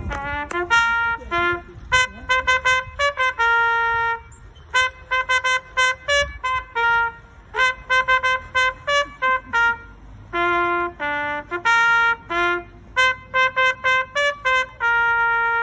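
Solo trumpet playing a melody of short separate notes in phrases with brief pauses, closing on a long held note near the end.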